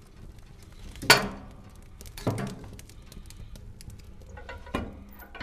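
Wood fire crackling: irregular small snaps, with louder pops about a second in, just after two seconds and near the end.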